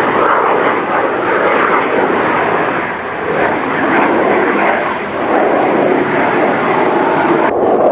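FPV racing drone's motors and propellers buzzing loudly under throttle, as picked up by a camera on the drone, with the sound surging up and down as the throttle changes.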